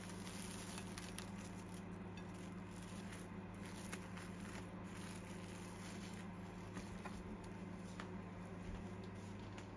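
Plastic cling wrap crinkling and crackling in small scattered clicks as it is stretched and pressed down over a plate, over a steady low hum.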